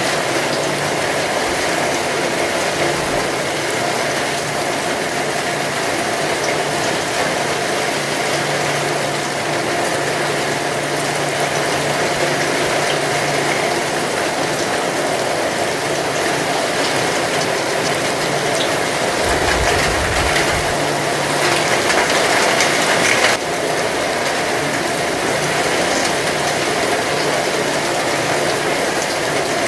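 Steady heavy rain, an even loud hiss. About twenty seconds in there is a brief low rumble, and a few seconds later the higher part of the hiss drops off suddenly.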